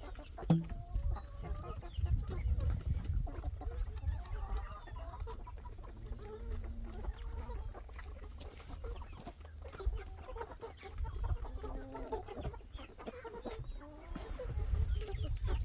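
Chickens clucking, many short calls overlapping throughout, over a low rumble.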